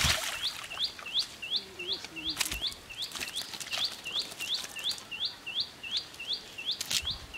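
A small bird repeating a short, high rising chirp over and over, about three a second, with a few brief wet slaps and splashes from fish flapping in the net on the mud.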